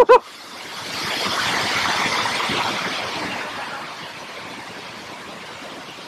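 Rushing water: a steady hiss that swells up loudly for a couple of seconds and then settles back to the background rush.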